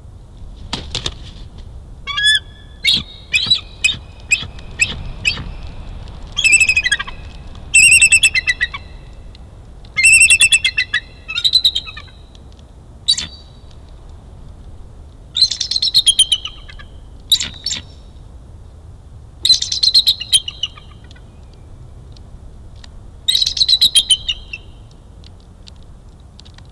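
Bald eagle calling: repeated bouts of high, rapid chattering notes, each about a second long and a few seconds apart, with shorter single notes in the first few seconds.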